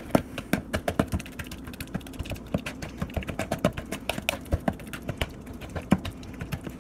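Ripe bananas being mashed with a utensil in a clear plastic tub: quick, irregular clicks and taps of the utensil against the plastic, several a second.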